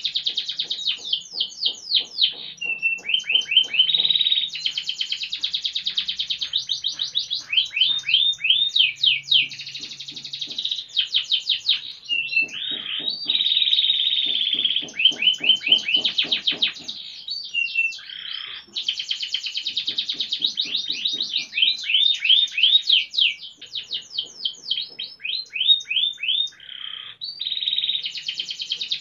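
Domestic canary singing a long, unbroken high-pitched song, alternating runs of rapidly repeated falling notes with sustained buzzy rolls.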